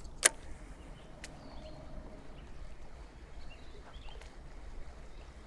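Quiet river ambience heard from a kayak: a low steady wash of water, with a few faint bird chirps. A single sharp click comes about a quarter of a second in, from the baitcasting reel in hand.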